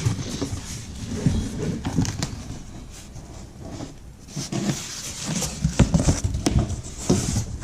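Handling noise from unpacking a box: cardboard and packing material rustling, with irregular small knocks and clicks that grow busier about halfway through.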